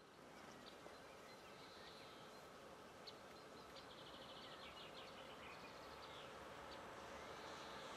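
Quiet outdoor ambience with small birds chirping, including a quick trill a few seconds in, over a faint even rumble that slowly grows louder as a train approaches from the distance.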